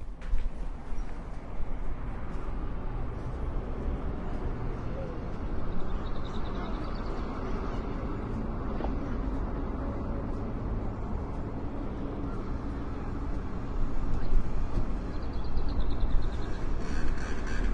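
Motorcycle engine starting, then idling with a steady low rumble; it grows louder and rises in pitch near the end as the engine is revved.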